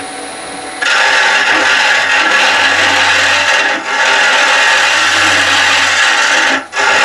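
A 6mm carbide hollowing cutter, held in an arm-type hollowing rig, cutting into a wooden blank spinning on a lathe: a loud, steady scraping hiss that starts about a second in. It breaks off for a moment near the end as the tool comes away from the wood, then resumes.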